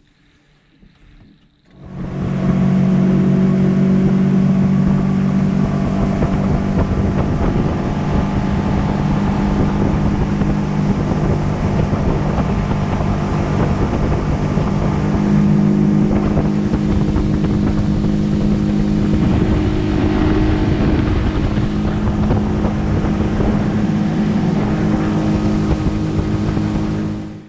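Boat's outboard motor running steadily under way, starting about two seconds in and ending sharply near the end.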